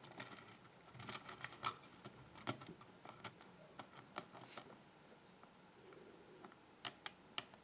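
Lock picking in a pin-tumbler challenge lock with spool security pins: small, irregular metallic clicks and scrapes of a hook pick and tension wrench in the keyway, with a few sharper clicks near the end.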